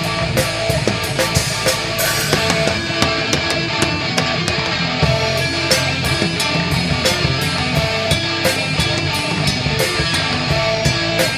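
Rock band playing live with no singing: electric guitar, bass and drum kit, the drums keeping a steady beat with regular drum and cymbal strikes.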